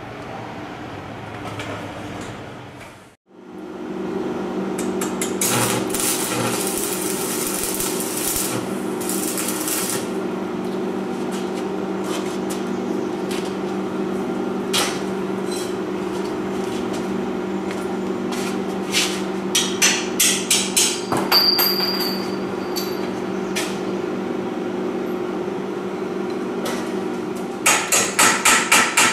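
A hammer striking a steel conduit-tube frame: scattered knocks, a run of strikes about three a second around twenty seconds in, and a quicker, louder run of strikes near the end, over a steady hum.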